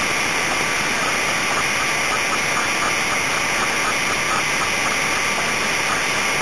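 Steady, even hiss like static, at constant loudness with no pitch or rhythm.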